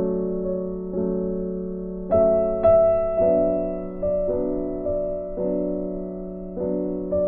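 Soft background piano music: sustained chords struck about once or twice a second, each fading away before the next.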